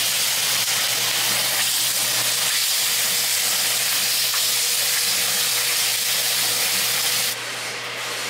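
Beef short ribs searing in hot oil in a cast iron skillet, a steady loud sizzle. The oil is smoking, likely too hot for this oil. The sizzle drops sharply about seven seconds in.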